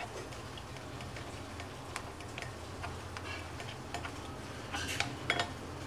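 Steel spoon scraping and tapping against a plastic mesh strainer as thick mint-coriander paste is pressed through it: scattered light clicks and scrapes, a few louder ones near the end, over a low steady hum.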